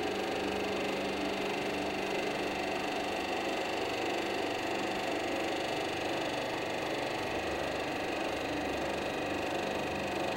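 Ruffinatti IM70 kneader running under power: a steady machine hum with a constant whine from its motor and drive as the kneading arm moves.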